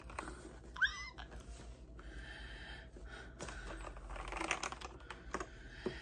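Typing on an Epomaker TH80 mechanical keyboard: scattered key clicks at an irregular pace. About a second in there is a short high-pitched squeak.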